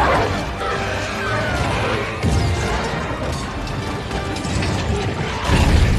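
Film battle soundtrack: an orchestral score under the crashes and impacts of combat. A louder crash with a deep rumble comes just before the end.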